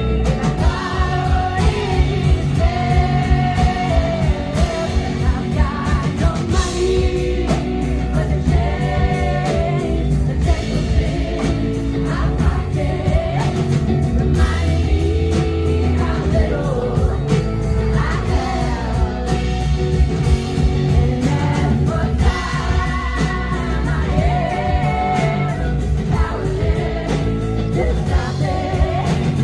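Live rock band playing a song: a woman's lead vocal over electric guitars and a drum kit with a steady beat, heard from the audience in a club.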